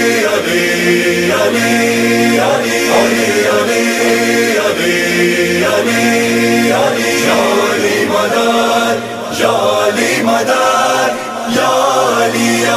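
Several voices chanting a noha, an Urdu mourning lament, together in long held notes, with two brief pauses about nine and eleven seconds in.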